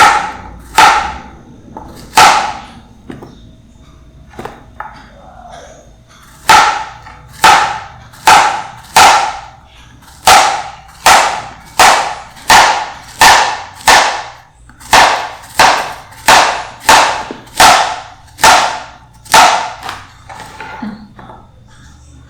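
Repeated sharp knocking strikes on a hard object in the kitchen, each with a short ringing tail. Three strikes come first, then a pause with a few soft taps, then a steady run of about sixteen strikes, a little more than one a second.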